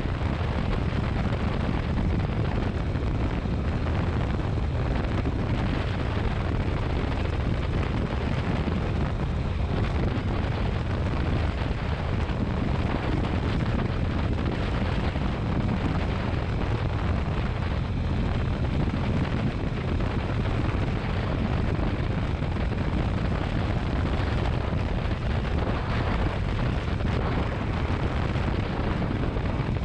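Motorcycle under way: steady wind rush on the microphone mixed with the engine's low drone, with no let-up.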